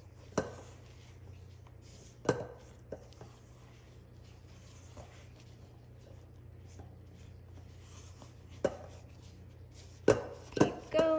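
Spatula folding dry ingredients into Swiss meringue in a mixing bowl, with a few sharp knocks of the spatula against the bowl. Near the end comes a quick cluster of knocks, the last of them ringing briefly.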